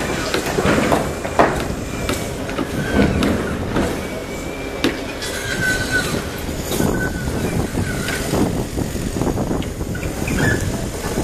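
Sumitomo SH480 hydraulic excavator working, its diesel engine running steadily under scattered metallic knocks and several short, high metal squeals.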